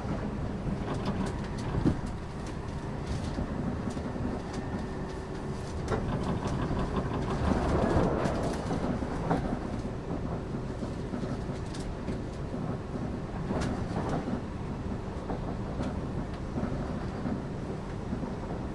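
JR West Limited Express Yakumo train running at speed, heard from inside the carriage: a steady rumble of wheels on rail with irregular clicks over rail joints, swelling louder about eight seconds in.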